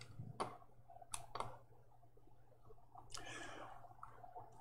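Faint clicks of a computer mouse, about four single clicks in the first second and a half, then a short soft hiss about three seconds in.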